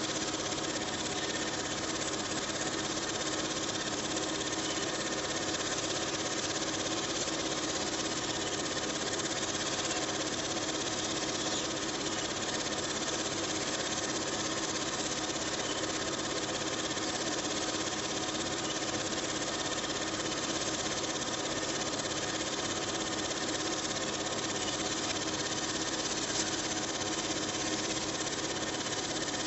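Film projector running: a steady, unchanging mechanical whir.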